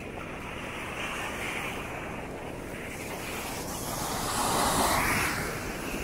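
Ocean surf washing in the shallows, a steady rush that swells louder about four seconds in as a wave runs in, then eases.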